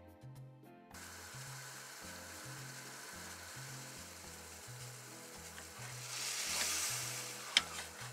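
Sake boiling hard in a small aluminium pan on a gas burner, a steady bubbling hiss as its alcohol is boiled off (nikiri). The hiss swells louder toward the end, and a single sharp clack comes just before the end.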